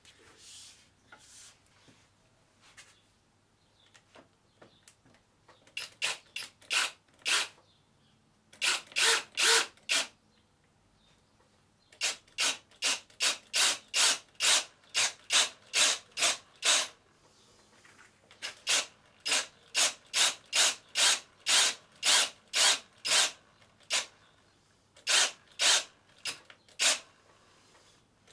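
A cordless drill with a long auger bit boring into a solid wooden guitar body. The sound comes in short, even bursts of cutting, about three a second, in runs with pauses between them, starting about six seconds in.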